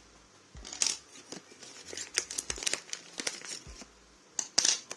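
Irregular small clicks, taps and crinkling rustles of hands handling a smartphone's parts and small tools during disassembly, with sharper taps about a second in and near the end.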